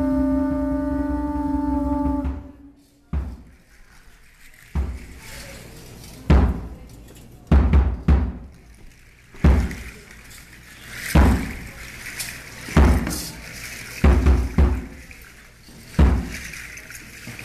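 Conch shell trumpets blown in one long held note that stops about two seconds in, followed by a large drum struck in slow single and paired beats roughly every second and a half.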